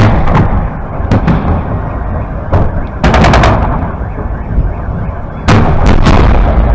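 Aerial fireworks shells bursting overhead in a loud display: a continuous low rumble of reports with sharp bangs, several in quick succession about 3 seconds in and another cluster about 5.5 seconds in.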